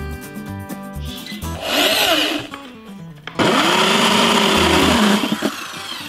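Electric drill spinning a hole saw through a wooden board, cutting a round hole: a short burst about a second and a half in, then a longer steady run of about two seconds with its pitch rising and falling as the saw bites. Background music plays underneath.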